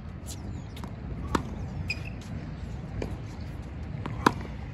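Tennis ball struck by a racket on groundstrokes: two sharp pops about three seconds apart, the second louder, with fainter knocks of the ball between them.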